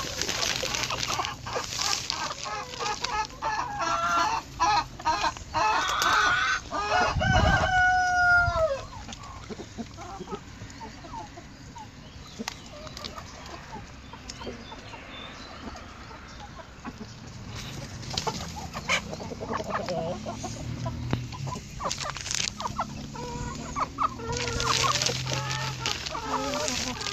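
A flock of crossbred hens clucking and pecking at grain, with sharp taps from the pecking. About six seconds in a rooster crows, one long call that falls away at the end.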